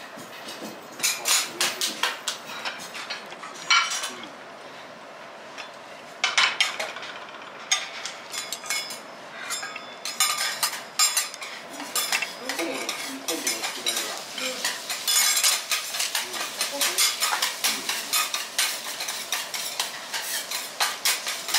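Steel knife and fork scraping and clinking against a ceramic plate while cutting a fish fillet, in short runs at first and almost without pause in the second half.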